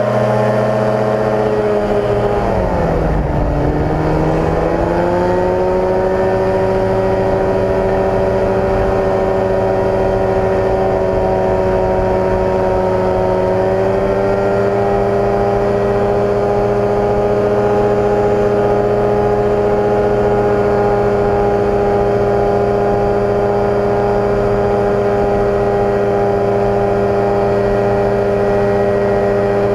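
Rotax 582 two-stroke twin driving the pusher propeller of a microlight trike at high power for takeoff and a steep climb. Its pitch sags and recovers a few seconds in, then holds a steady note with a slight rise about halfway through.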